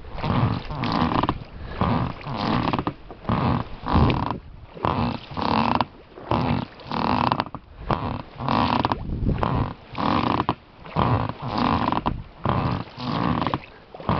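Oars of an inflatable rowing boat being worked in a steady stroke, a rough sound about twice a second with short gaps between.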